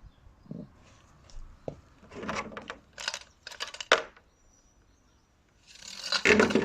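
Metal parts of a motorcycle front fork clinking and knocking as it is taken apart, with a few sharp clinks in the middle. Near the end comes a loud clatter as a fork part is dropped onto the floor.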